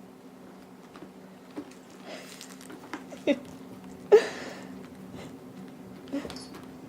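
Young kittens moving about and playing, making a few short scuffles and rustles, the loudest about four seconds in, over a steady low hum.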